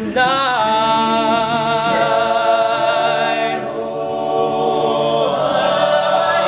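Male a cappella group singing long held chords under the lead singer, with no instruments. The chord changes a little past halfway and again near the end.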